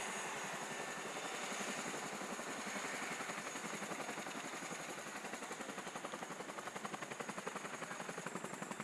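Helicopter running on the ground: a rapid, even chopping of rotor blades with a high turbine whine above it, the chop growing more distinct toward the end.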